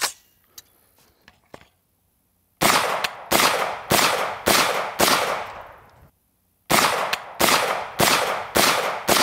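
CMMG Mk-W Anvil AR-15 in .458 SOCOM firing 140-grain PolyCase rounds, after a couple of seconds of faint handling clicks. It fires a string of five shots about two-thirds of a second apart, then, after a short break, five more at the same pace, each shot trailing off.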